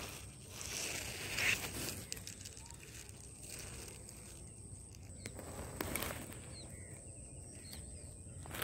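Outdoor ambience with light rustling, a few short brushing sounds about one and a half seconds in and again near six seconds, over a thin steady high-pitched tone.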